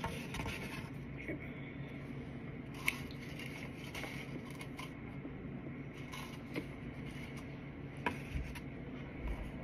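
Soft crunching and chewing of chunks of Argo cornstarch, with a few sharp clicks of a plastic utensil against a paper plate, over a steady hum.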